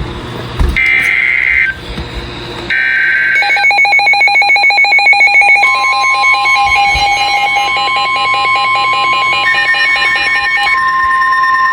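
NOAA Weather Radio Emergency Alert System activation. First come two short screeching bursts of SAME digital header data. Then a fast pulsing alert beep starts, and about halfway through the steady 1050 Hz weather-radio warning alarm tone begins, joined near the end by a second steady higher tone.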